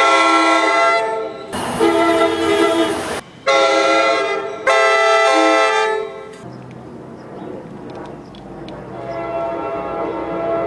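Horn of a Metro-North push-pull train hauled by GP40FH-2 #4905: four loud blasts for the grade crossing as the train approaches, the second and fourth harsh-edged. After the blasts, about six seconds in, the train's quieter running rumble follows.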